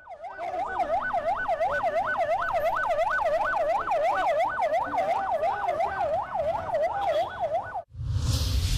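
Police vehicle siren in a fast yelp, its pitch sweeping up and down about three times a second, cutting off suddenly near the end. It is followed by a short whoosh with a low boom.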